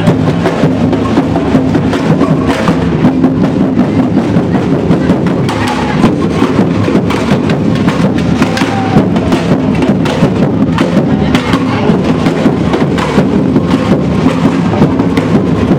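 Street percussion group playing large bass drums and other drums together in a dense, steady rhythm, with sharp knocking strokes over the deep drum beats.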